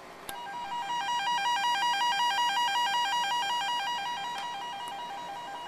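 A warbling test tone from a small tone generator, two pitches near 1 kHz alternating rapidly like a phone ringer, played through a Tannoy two-way 12-inch driver with a newly replaced tweeter diaphragm: the rebuilt driver works. A click comes just before the tone starts, and the tone fades slightly near the end.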